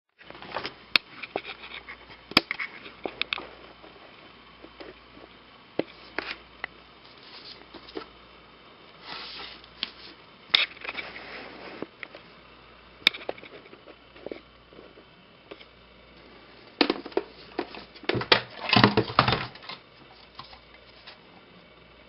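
Scattered clicks, knocks and short rattles from an Empire Prophecy paintball hopper being handled, with a denser run of rattling near the end.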